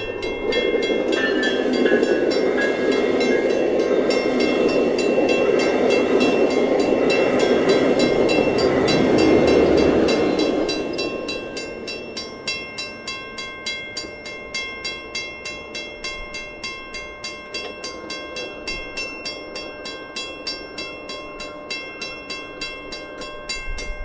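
VIA Rail Siemens Venture passenger train passing over a level crossing: a loud rumble of wheels on rail for about ten seconds that fades as the train pulls away. The crossing's warning bell rings throughout in quick, even strikes, and is left alone once the train has gone.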